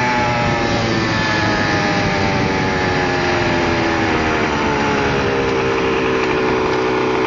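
Honda CR125 two-stroke single-cylinder motocross engine running under way, its pitch sinking slowly and steadily as the revs drop.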